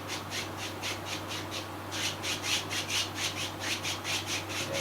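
A paintbrush scrubbing wet paint in quick, even back-and-forth strokes, about five a second, blending the sky colours upward; the strokes pause briefly near the middle and then resume.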